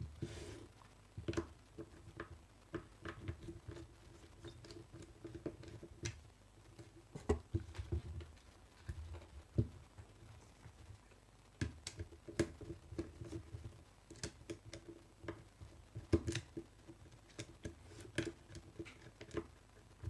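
Small irregular clicks, taps and scrapes of a small screwdriver and wire ends being worked into the screw terminals of a plastic contactor.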